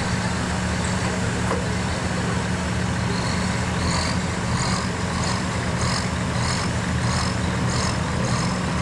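John Deere farm tractor's diesel engine running steadily at full load as it pulls a weight-transfer sled. A high chirp repeating about twice a second joins from about four seconds in.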